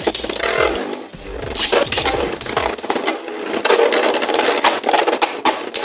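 Beyblade Burst spinning tops whirring and scraping across the floor of a plastic Beyblade stadium, with repeated sharp clicks as they hit each other and the walls.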